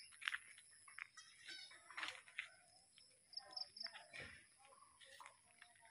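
Faint snapping and crackling of leafy branches and twigs as a herd of wild Asian elephants feeds in dense scrub, a string of short sharp snaps. A few short bird chirps come about halfway through.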